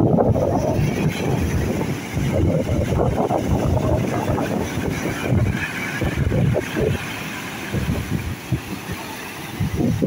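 Sea surf breaking and foam washing up over a pebble beach, a continuous rushing hiss that swells and eases, with gusty wind rumbling on the microphone.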